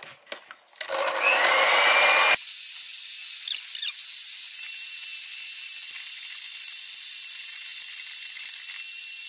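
Electric hand mixer switched on about a second in, its motor whine rising as it spins up, then running steadily as its beaters whip egg whites stiff. About two seconds in the sound abruptly turns thinner and hissier, then holds steady.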